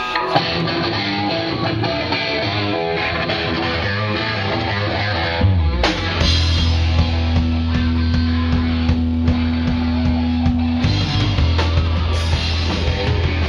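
A punk rock band playing a loud instrumental live on electric guitars, bass guitar and drums. About six seconds in it shifts to a new section, a held low bass note under evenly spaced drum hits.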